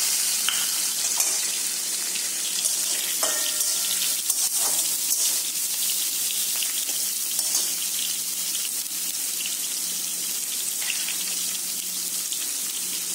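Hot oil sizzling steadily in a steel kadai as fish steaks and then a tempering of onion, garlic and curry leaves fry, with a metal spatula scraping and clinking against the pan now and then.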